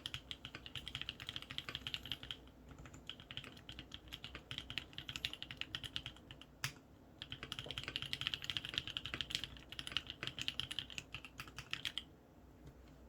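Fast typing on a Matrix Noah mechanical keyboard with lubed Kailh Cream linear switches, an aluminium case and plate, and ePBT keycaps: a dense run of key clicks. It breaks off briefly twice, with one single sharper clack in the second pause, and stops about a second before the end.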